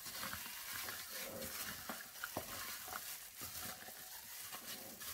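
Wet squishing and sloshing as a hand in a plastic bag kneads raw chicken wings in a thick ketchup marinade in a bowl, with small irregular clicks.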